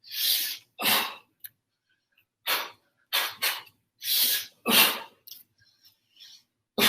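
A person's sharp, forceful breaths, about eight short hissing bursts at irregular spacing, of the kind a martial artist makes with each kick.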